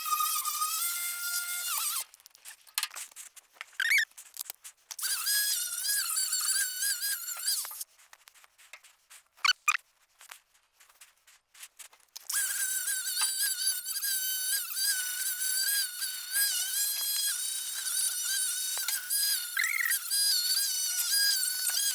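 Angle grinder with a wire wheel scrubbing grease off a steel truck frame, running in spells with a high, wavering whine. It stops twice for a few seconds, with short bursts in between.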